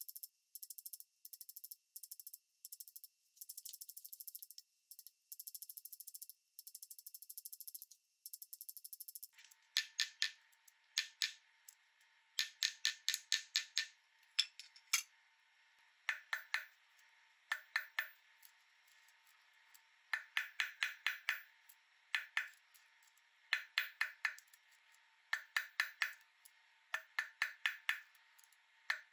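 Small hammer tapping a silver bike-chain ring on a steel bench block, in quick runs of three to six light, ringing strikes. For about the first nine seconds the tapping is sped up and sounds thin and high.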